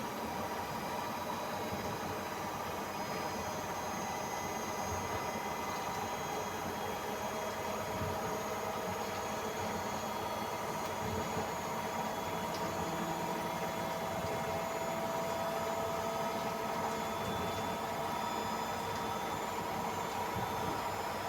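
Samsung AddWash WW70K5410WW front-loading washing machine in its spin cycle: the drum spins at high speed, making a steady whine of several tones over a rushing hiss. One of the tones creeps slowly up in pitch.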